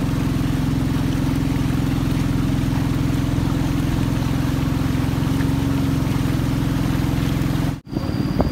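Long boat's motor running steadily under way, a constant drone with water noise. Near the end it breaks off abruptly and a different sound with a steady high whine follows.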